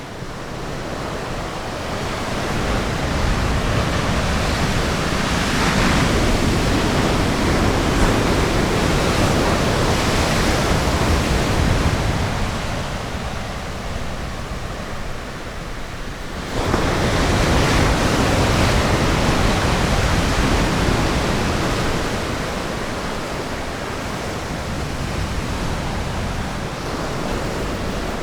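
Ocean surf breaking on a beach. A long swell of wash builds and fades, then a second wave breaks suddenly about sixteen seconds in and slowly recedes.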